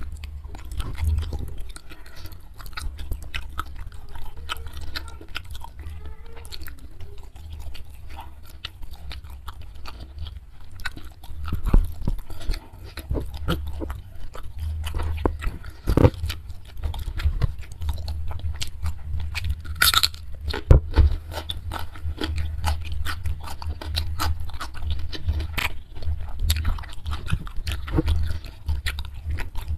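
Close-miked chewing and crunching of crispy spicy beef jerky (dendeng balado), with sharper clicks and crackles scattered through, the loudest about twenty seconds in. A steady low hum runs underneath.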